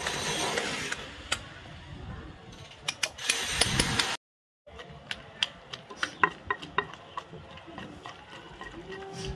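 A steel spoon scraping and clinking as cooked chutney ingredients are scooped out of a pan into a stone mortar. After a brief silence about four seconds in, a pestle pounds the mixture in the stone mortar: a run of uneven dull knocks, the first stage of grinding a rolu pachadi.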